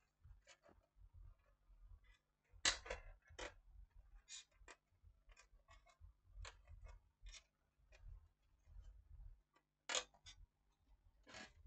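Faint scattered clicks and knocks from an opened DVD player's plastic and sheet-metal casing being handled and tipped on its side, with low thuds; the loudest knocks come about three seconds in and again near ten seconds.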